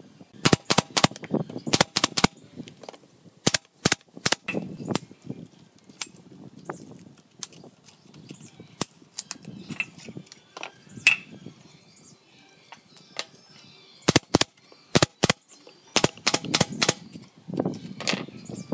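Nail gun firing nails into pine boards, sharp shots in quick clusters of several at a time with pauses between, fastening the legs to a curved bench seat.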